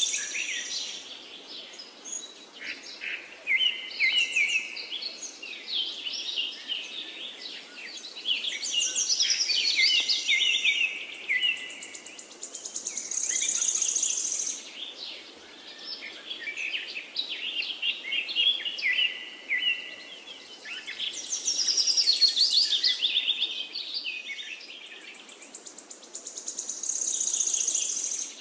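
Songbirds singing: a steady stream of high chirps and trills, with a bright high trill coming back about every 14 seconds.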